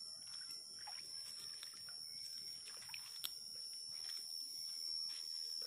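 Night-time insect chorus, a steady high-pitched trill, with scattered short animal calls over it and one sharp click about three seconds in.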